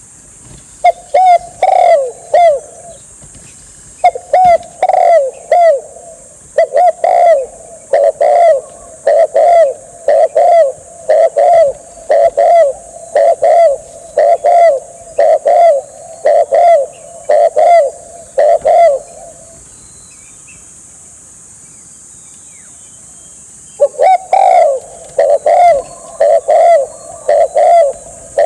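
Spotted dove cooing: loud low coo notes repeated in quick groups of two or three, steadily for about twenty seconds, then a pause of a few seconds before the cooing starts again near the end.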